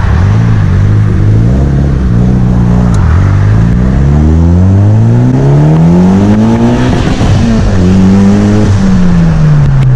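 A car engine running, then revving up: its pitch climbs steadily for about four seconds and breaks off briefly, as at a gear change. It then holds and falls away near the end.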